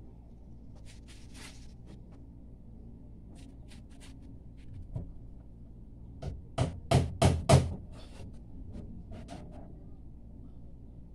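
Hammer knocking on wood: scattered light taps and clatter, then a quick run of about five loud blows just past the middle, over a steady low hum.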